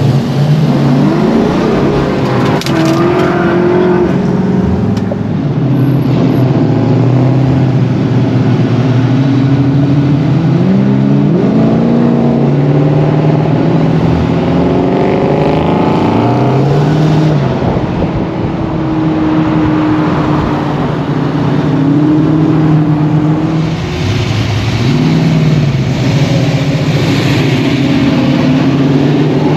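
Classic cars' engines running in cruise traffic, the engine note rising and falling several times as the cars accelerate and ease off.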